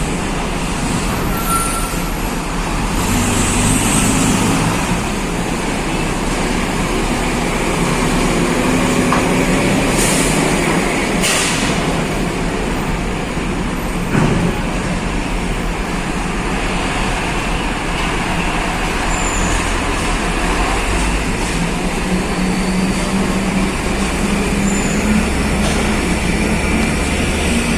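Trucks and cars running their engines as they drive onto a ferry's car deck, a steady vehicle din with two short air-brake hisses about ten and eleven seconds in and a single thump a few seconds later.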